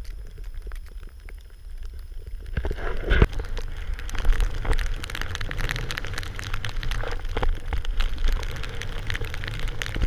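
Wind rumbling on a GoPro camera, then from about two and a half seconds in a dense crackling hiss of powder snow spraying against the camera as the rider carves through deep snow, with a couple of louder thumps early on in the spray.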